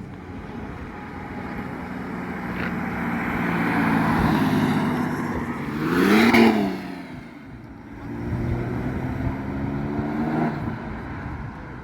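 Car engine revving as the car drives past, its pitch rising to a loud peak about six seconds in and then dropping away. A second engine rises again near the end.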